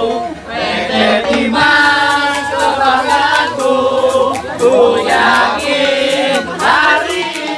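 A group of people singing a chant together in unison, voices loud and overlapping, with gesture-style rhythm.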